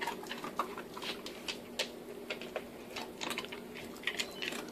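Brown paper bag rustling and crinkling as an Anatolian Shepherd dog noses into it: irregular short crackles and clicks over a steady low hum.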